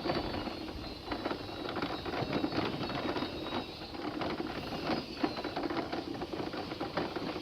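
Wheelchair rolling over an uneven surface, a continuous irregular rattling and clicking.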